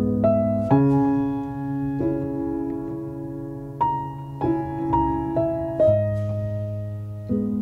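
Solo piano playing a slow passage: chords and single notes struck about once a second, each left to ring on and fade into the next.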